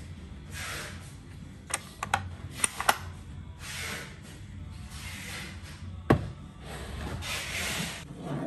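A thermos jug being handled and set down on a kitchen shelf: a few light clicks about two to three seconds in, then one sharp knock about six seconds in. Soft background music underneath.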